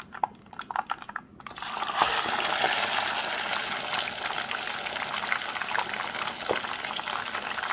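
A piece of marinated fish frying in hot oil in a pot. Faint crackling of the hot oil gives way, about a second and a half in, to a loud, dense, steady sizzle as the fish goes in.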